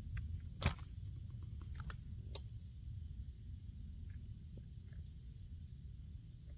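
Handling noise from a pistol and its rounds: one sharp click about half a second in, then a few lighter clicks and small ticks over a steady low rumble.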